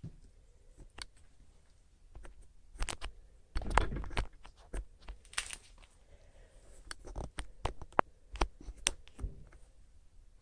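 Irregular small clicks, taps and knocks of things being handled, with a louder run of knocks about four seconds in and another cluster of taps near the end.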